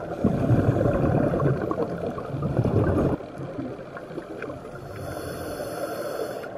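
Underwater sound through a camera housing: a loud gurgling rush of a scuba diver's exhaled bubbles for about three seconds, which drops suddenly to a softer steady wash of water noise.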